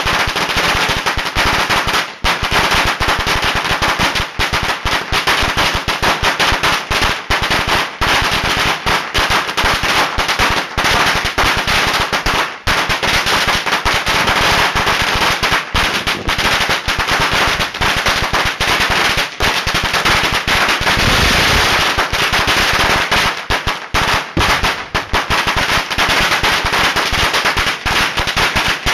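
Strings of firecrackers exploding at close range in a rapid, unbroken barrage of sharp bangs. About two-thirds of the way through, the bangs run together into a denser burst for a couple of seconds.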